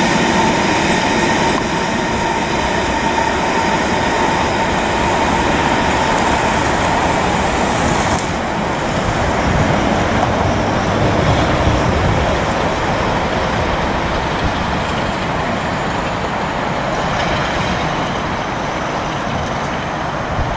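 A freight train of covered steel wagons rolls past and away along the track with a steady rumble of wheels on rail. A thin, steady wheel whine runs through roughly the first eight seconds.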